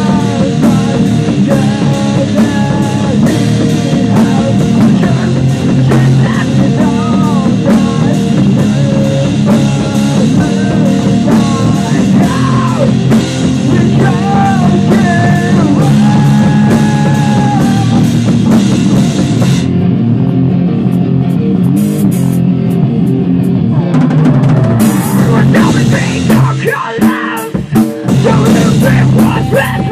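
Rock band playing live in a rehearsal room: drum kit, guitar and a singer through a microphone. About two-thirds through, the cymbals drop out for a few seconds, then the drums come back with hits and fills.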